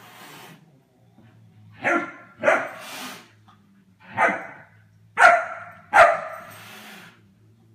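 German Shepherd puppy barking: five sharp barks, two in quick succession about two seconds in, then three more roughly a second apart.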